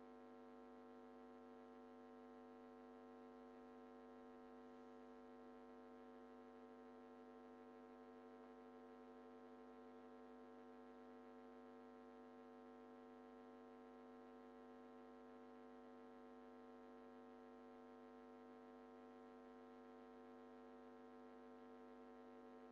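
Near silence with a faint, steady electrical hum of several even tones that does not change.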